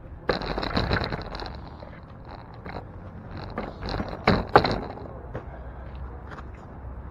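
City street background with a low steady rumble, scattered clicks and rattles, and two sharp knocks about four and a half seconds in, the loudest sounds.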